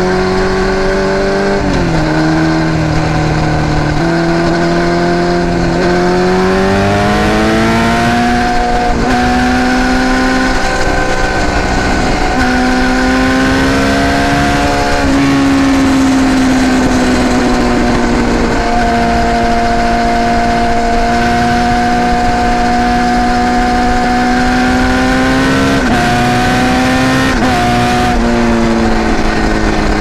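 Yamaha YZF600R inline-four running through a Two Brothers C2 aftermarket exhaust while riding: the engine note climbs and drops back at each gear change, then holds a steady pitch for about ten seconds at cruising speed before a couple more shifts near the end.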